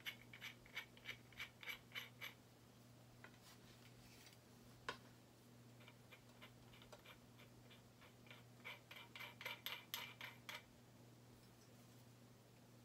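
Faint runs of quick clicks, about four a second, from a small folding survival shovel with a nylon shaft being twisted and worked by hand, with one sharper click about midway.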